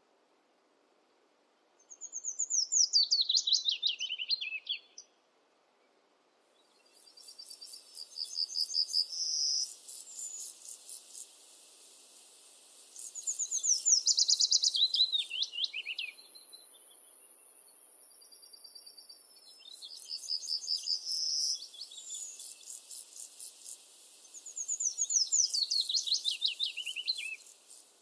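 Forest songbirds: one bird repeats the same song phrase three times, a quick run of notes falling from high to low over about three seconds. Between its phrases other birds give short, quickly repeated calls, and near the middle a thin, high, steady buzz lasts about three seconds.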